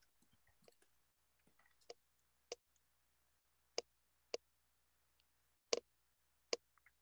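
Six or so sharp single clicks from someone using a computer at a desk, spaced irregularly about half a second to a second apart, with faint soft rustling near the start, picked up by an open microphone on a video call.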